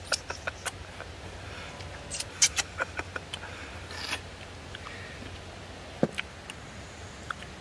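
Eating sounds: a scatter of short wet smacks and clicks as meat is sucked and chewed off a pork neck bone, with a sharp clack of chopsticks against a dish about six seconds in.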